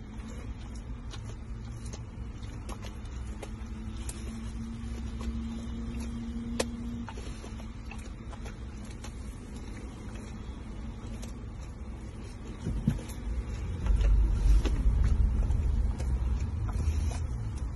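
Steady low rumble of a car's engine and road noise heard inside the cabin, getting louder about thirteen seconds in, with a few faint clicks.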